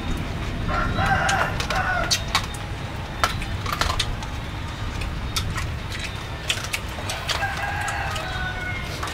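A rooster crowing twice, once about a second in and again near the end, over scattered small clicks and crunches of fried mouse being picked apart and eaten by hand.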